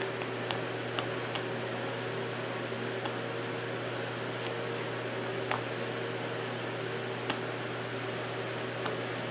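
Steady low hum and hiss of background noise, with a few faint, scattered ticks.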